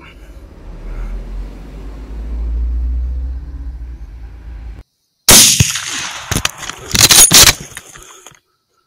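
A low rumble, then a rifle shot about five seconds in, so loud that it overloads the recording, followed by more loud cracks and their echo about a second and a half later. This is a long-range shot at wild boar through a thermal scope.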